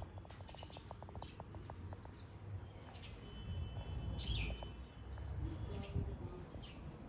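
Songbirds chirping in the background, with short sharp calls about once a second. A quick run of ticks slows down over the first two seconds, over a low steady rumble.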